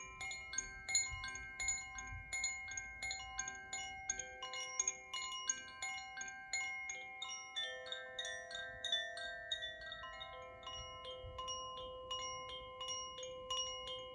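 Koshi chimes being swayed: a dense, continuous tinkling of bright metal chime notes, several strikes a second, each note ringing on and overlapping the next.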